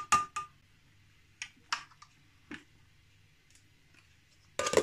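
Scattered clicks and knocks of a steel mixer-grinder jar and a small glass cup being handled, a few at first, then single taps, with the loudest clatter near the end as the jar is set onto the mixer base; the louder knocks ring briefly.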